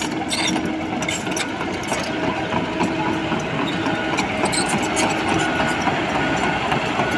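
Komatsu PC78US mini excavator's diesel engine running steadily, with scattered light metallic clicks and rattles as the machine moves.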